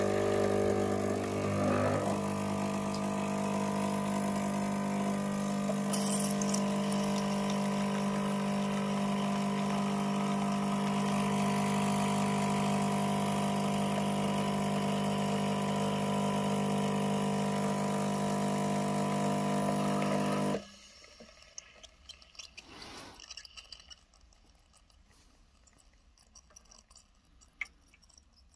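Saeco Nina Plus espresso machine's pump humming steadily while it pulls an espresso shot, then cutting off suddenly about twenty seconds in. After that only a few faint clicks as the cup is handled.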